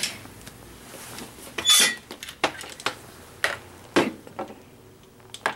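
Handling of an APS AK74 airsoft electric rifle: a string of sharp metallic clicks and knocks, with a louder brief rattle a little under two seconds in.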